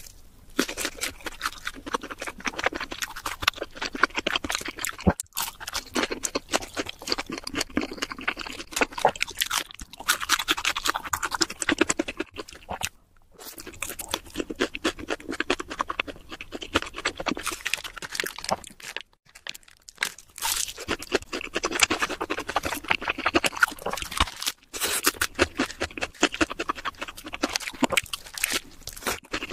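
Close-miked crunching and chewing of crispy fried food: a steady run of crackly bites and chews, with brief pauses about 13, 19 and 24 seconds in.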